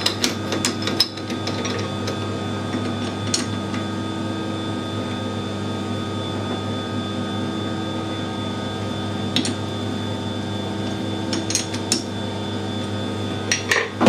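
Sharp metal clicks and knocks as a steel bearing ring is set into a lathe's three-jaw chuck and the jaws are tightened with the chuck key. A cluster comes in the first second and a few more come near the end, over a steady machine hum.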